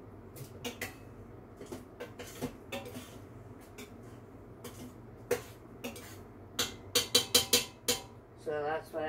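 A spoon clinking and scraping against the stainless steel inner pot of an Instant Pot while stirring soup. There are scattered light knocks, then a quick run of about six louder sharp taps about seven seconds in.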